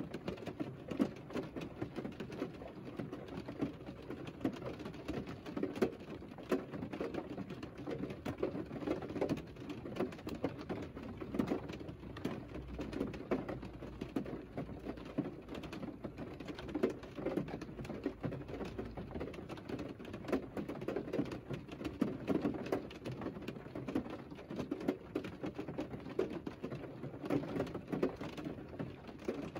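Rain pattering on the roof and glass of a parked Mercedes car, heard from inside the cabin as a dense, irregular stream of muffled drops. A faint low rumble joins in for several seconds in the middle.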